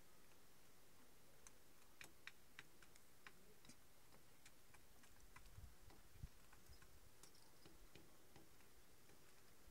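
Near silence with faint, irregular ticks and clicks from a hen and cats eating out of a shared dish, and a couple of soft low thumps about halfway through.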